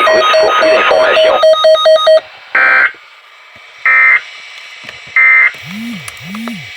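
Electronic music stops about two seconds in. Then come three short, loud electronic data bursts about 1.3 s apart, the header tones that open an emergency alert broadcast, followed near the end by two low swooping tones.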